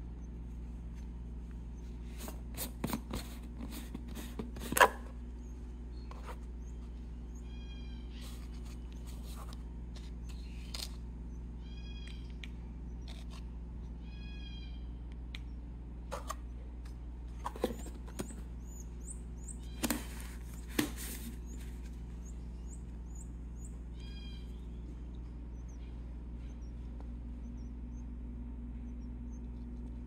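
Small plastic measuring cups and the formula tub clicking and knocking as they are handled, in a few clusters, the loudest knock about five seconds in. Between them, finches give short nasal calls about five times, over a steady low hum.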